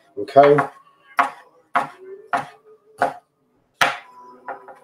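Kitchen knife chopping raw shrimp on a cutting board: about six sharp strokes at an even pace, roughly one every two-thirds of a second.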